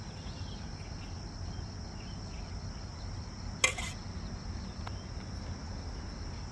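Crickets chirring steadily in a high, even drone with a faint pulsing edge, over a low rumble. A single short, sharp knock about three and a half seconds in stands out above it.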